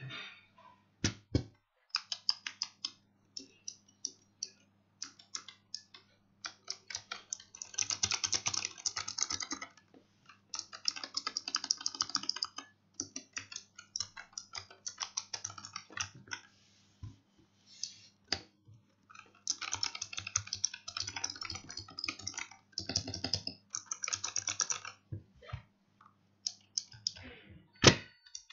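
Typing on a Razer Huntsman Mini 60% keyboard with optical switches: fast runs of keystroke clicks broken by short pauses, with a single louder knock near the end.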